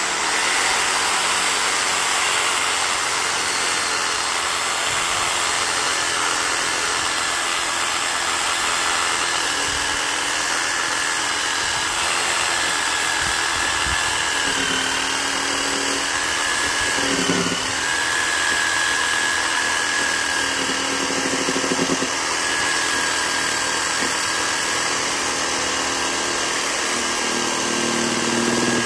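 Reciprocating saw running continuously as it cuts through a 10 cm-thick wooden post, a steady high whine whose pitch wavers briefly about two-thirds of the way through.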